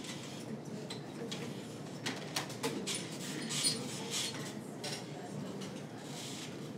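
Classroom room sound while students work on paper: a low murmur of voices, with a few small clicks and paper rustles about two to four seconds in.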